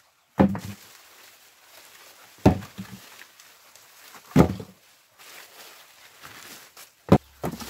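Cucumbers being picked and dropped into a plastic bucket: dull thuds about every two seconds, five in all, the last two close together near the end, with faint rustling of the vines between.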